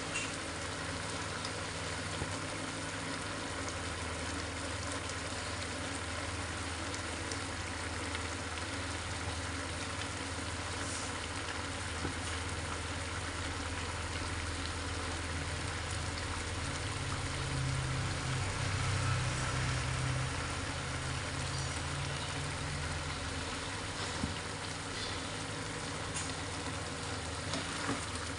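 Chicken feet and livers simmering in a thick sauce in a frying pan, bubbling and popping steadily as the sauce reduces. A steady low hum runs underneath and swells for a few seconds about two-thirds of the way through. A spatula starts stirring the pan at the very end.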